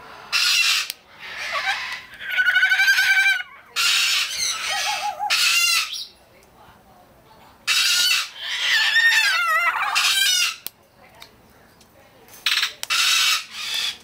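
Moluccan cockatoo screeching: a series of loud, harsh calls about half a second each, some with a wavering, warbling pitch, coming in bursts separated by short pauses.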